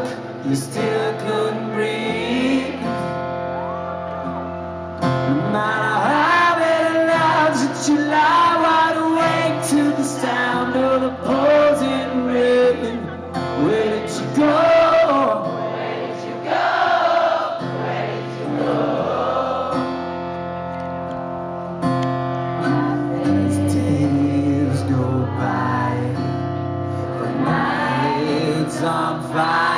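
Live acoustic rock song heard through a handheld concert recording: a male lead vocal sings over strummed acoustic guitar chords.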